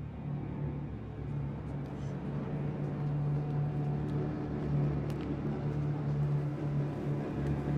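A car running, a steady low engine hum that slowly grows louder.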